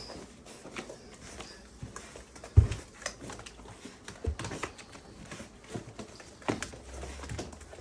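Rottweiler puppies scuffling and moving about: scattered paw taps and knocks, with one heavy thump about two and a half seconds in.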